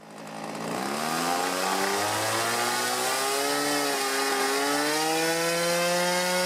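Hangar 9 Alpha 40's small glow (nitro) model-airplane engine running, with its pitch rising slowly as the revs climb and then holding steady at a high, even rev.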